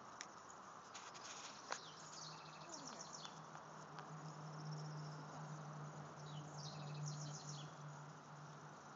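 Insects trilling in short bursts of fast, high ticking, several times. A steady low hum comes in about two seconds in and fades near the end.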